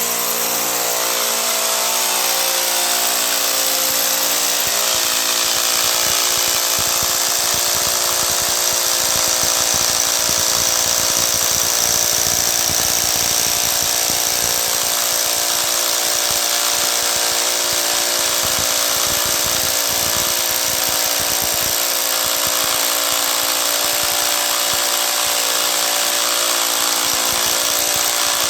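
Bosch electric drill running steadily at full speed: a continuous motor whine with an uneven rattle underneath.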